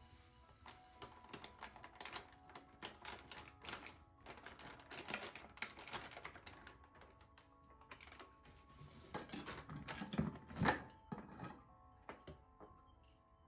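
Irregular light clicks and taps, thickest in the middle, with one louder knock about ten and a half seconds in, over soft background music.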